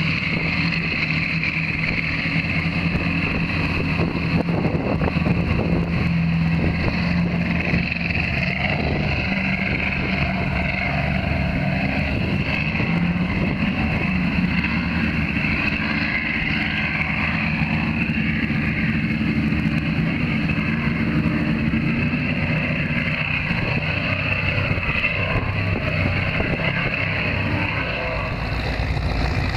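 Offshore racing powerboat's engines running at high speed, a continuous loud drone with wind buffeting the microphone, easing slightly near the end.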